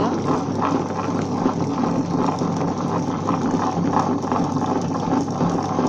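Tabletop wet grinder running steadily with a constant hum, its stone roller churning soaked rice and cooked rice into thick batter in the turning steel drum, partway through grinding.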